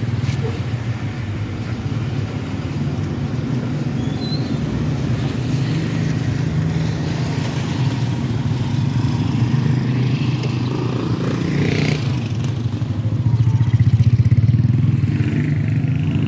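Small motorcycle engines running close by in street traffic, a steady low hum that grows louder for a couple of seconds about three-quarters of the way through.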